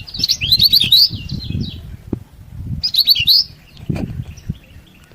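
Kecial kuning, a small white-eye songbird, giving rapid high twittering chatter in two bursts, the first at the start and the second about three seconds in, with fainter chirps in between. A rough low rumble runs underneath.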